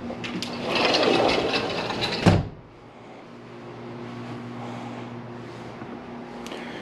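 A sliding glass door rolling along its track for about a second and a half, ending in a sharp thud as it shuts. A steady low hum follows.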